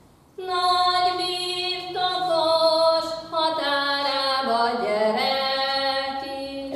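A woman singing a Matyó (Hungarian) folk song unaccompanied. After a short pause she sings one long phrase, holding notes with a melody that falls step by step and settles on a lower note before trailing off near the end.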